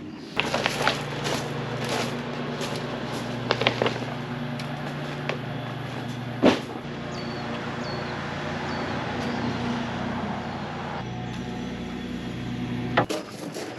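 A steady low mechanical hum that cuts off abruptly near the end, with scattered sharp clicks and knocks over it.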